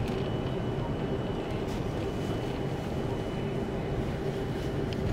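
Cabin noise of an Airbus A330-300 taxiing, heard from inside at a window seat: a steady rumble with a constant hum and a faint high whine over it.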